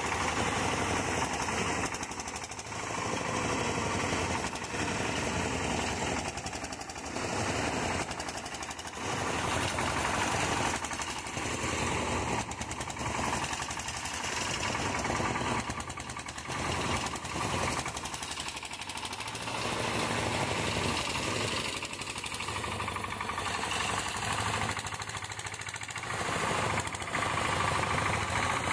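Homemade mini tractor's small engine running under load with a rapid, hard chugging, its loudness dipping and swelling repeatedly as it works through the grass.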